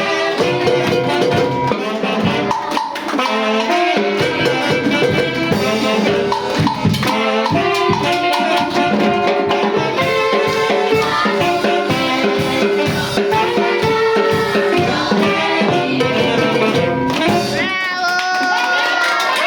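A band playing music, horns over percussion with a shaker rattle; near the end the horns hold long sliding notes.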